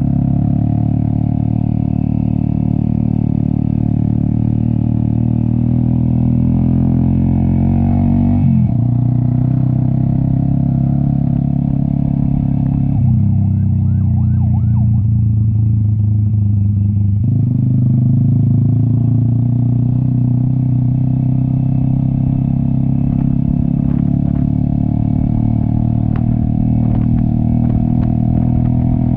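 Cafe 400 motorcycle with an SC Project aftermarket exhaust, running under load on a steep uphill climb, its exhaust note steady and loud. About eight seconds in the revs drop sharply, and around the middle the note changes for a few seconds before shifting back abruptly.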